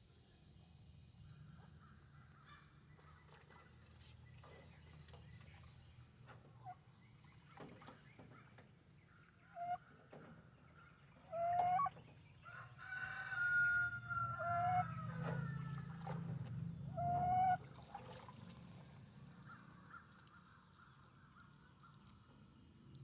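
A chicken calling loudly, several short squawks and one longer drawn-out call, between about ten and eighteen seconds in.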